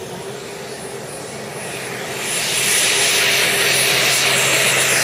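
Turbine-powered radio-controlled scale Bell helicopter in flight: a steady high turbine whine with rotor noise. It grows much louder about two seconds in as the helicopter comes close and low.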